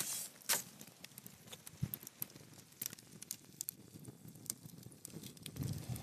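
Small wood fire crackling in a bed of ash and embers: irregular sharp ticks and pops, with a short burst of noise right at the start and a low rumble swelling near the end.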